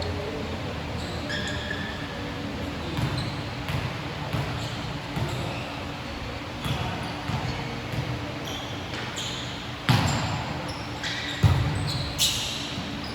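Basketball game on an indoor court: the ball bouncing and sneakers squeaking in an echoing hall, with two sharper thuds near the end.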